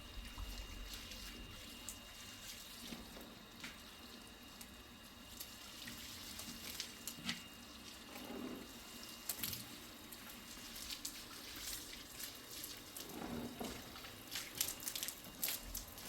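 Water running at a kitchen sink, with scattered light clinks and knocks.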